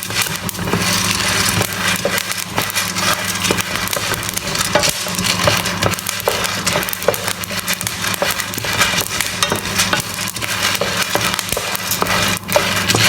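Arabic coffee beans being stirred in a hot pan as they roast: a dense crackle with many small clicks, over a steady low hum.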